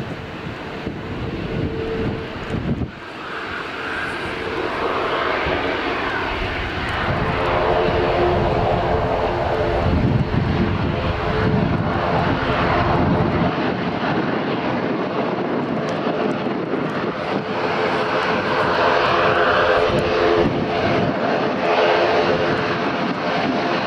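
An airliner's engines running, growing gradually louder, with a steady hum entering about a third of the way in. Low rumble from wind on the microphone runs under it during the first half.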